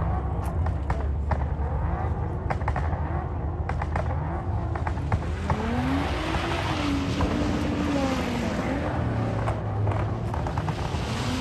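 Car engine rumbling at idle, then revved up and down repeatedly from about halfway in, the exhaust noise swelling with each rev. A few sharp clicks come in the first few seconds.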